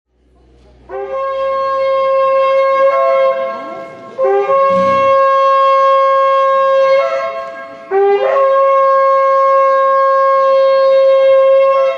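Two shofars blown together in three long blasts. Each blast scoops up in pitch into a steady, bright held note.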